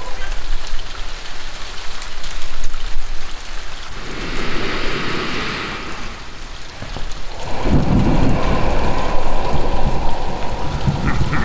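Heavy rain falling steadily, with rolling thunder rumbling in about two-thirds of the way through.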